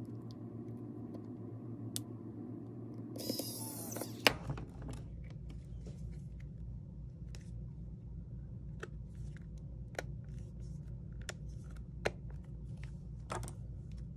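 Light clicks and taps from small tools and an iPhone 6's frame and screen being handled during reassembly. About three seconds in there is a brief rustling burst, then a sharp click, followed by scattered light ticks, all over a steady low hum.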